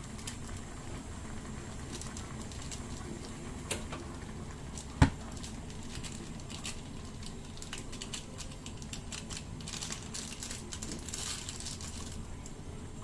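Kitchen cooking sounds over a steady low hum: scattered small clicks and knocks of utensils and pots, one sharp knock about five seconds in, and a stretch of fine crackling near the end.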